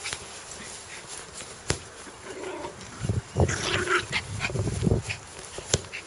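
A dog scratching itself behind the ear with a hind leg: a burst of rapid scratching and rustling with soft thumps for about two seconds around the middle, and a couple of sharp clicks.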